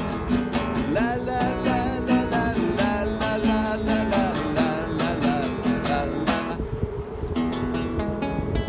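Classical nylon-string guitar strummed in a steady rhythm, about four strums a second. A wavering melody line sits over the strumming from about a second in until about six and a half seconds, then the guitar carries on alone.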